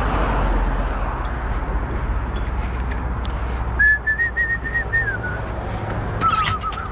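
A person whistling a few held notes, starting about four seconds in and dropping lower near the end, over a steady low rumble with scattered light clicks.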